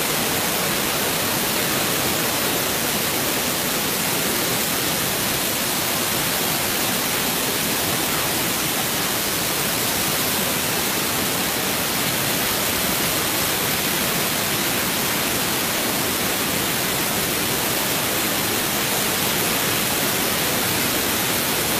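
Waterfalls pouring down a rock face close by: a loud, steady, even rush of falling water that does not change.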